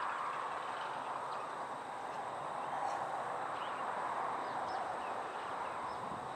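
Steady outdoor background noise, with faint, scattered bird chirps.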